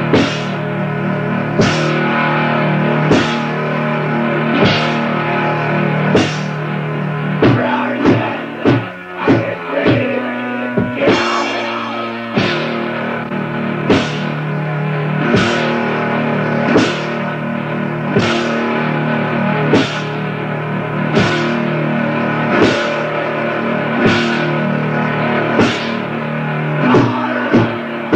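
Slow doom-black metal from a 1993 demo tape recording. Distorted guitar chords ring under heavy drum and cymbal hits about every second and a half. A busier drum fill comes between about eight and eleven seconds in.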